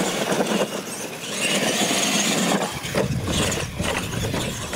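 R/C monster trucks racing on loose dirt: motors whining and big tires scrabbling, with sharp knocks from about three seconds in as a truck goes over the wooden tabletop jump.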